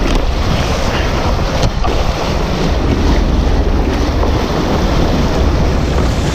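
Water rushing and churning in whitewater alongside a moving boat, with heavy wind buffeting the microphone. The noise is loud and steady throughout.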